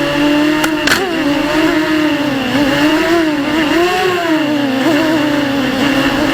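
Floureon 250 racing quadcopter's brushless motors and propellers whining, the pitch rising and falling with throttle, with two brief sharp clicks about a second in.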